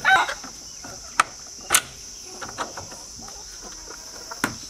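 Steady high-pitched chorus of insects, crickets by their sound, with a few sharp clicks and knocks from working the latch and opening the wooden shed door of the chicken coop, the last about four and a half seconds in.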